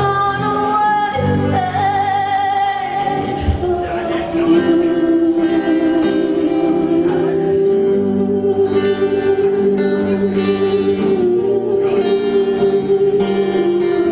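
A woman singing over strummed acoustic guitar, live. About four seconds in she takes up one long held note with vibrato and keeps it almost to the end.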